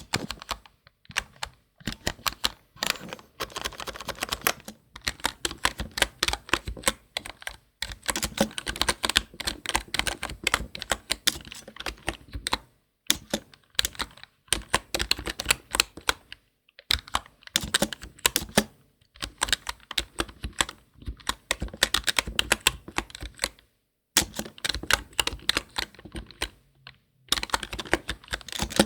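Typing on a computer keyboard: fast runs of crisp key clicks broken by several brief pauses.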